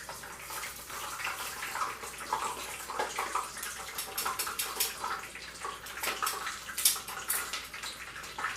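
Battered food deep-frying in hot oil: a steady bubbling sizzle thick with small pops and crackles.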